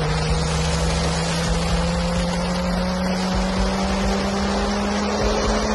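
Fighter jet's engines running on the ground: a steady rushing noise with a whine that slowly rises in pitch.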